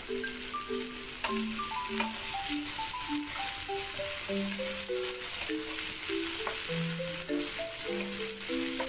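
Long beans sizzling as they stir-fry in oil in a wok, with a wooden spatula scraping and knocking against the pan now and then. A simple background melody of single held notes plays throughout.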